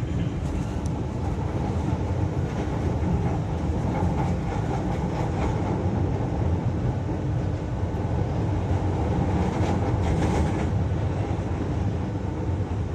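Running noise inside a moving MRT-3 train carriage: a steady low rumble of the wheels on the elevated track, with light clicks and rattles and a brief burst of higher rattling about ten seconds in.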